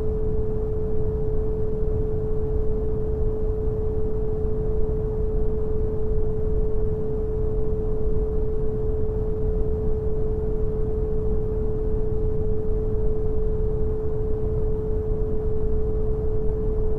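Synthetic brown noise, a steady deep hiss strongest in the bass, with a single pure sine tone at 432 Hz sounding steadily over it.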